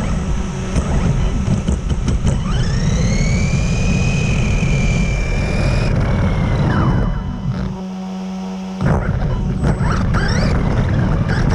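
RC car's electric drive motor whining under throttle. The pitch rises steeply a couple of seconds in, holds high, and falls away around seven seconds in, then climbs again, over the tyre noise of the car running on grass and rough tarmac. A brief quieter lull comes about eight seconds in.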